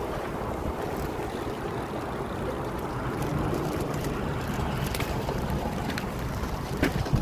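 Steady rush of wind buffeting the microphone of a moving bicycle rider, with road noise underneath. A couple of sharp clicks near the end.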